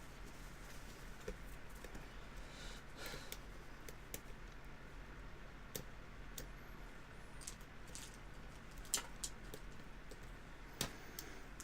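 Small metallic clicks and scrapes, irregular and faint, from a lock pick and tension wrench working the pins of a spool-pinned pin-tumbler challenge lock. Two sharper clicks stand out about nine and eleven seconds in.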